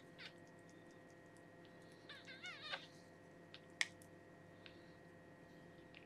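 Week-old newborn kitten mewing: a short squeak at the start, then a wavering cry lasting under a second about two seconds in. A single sharp click follows a little later, the loudest sound, over a faint steady hum.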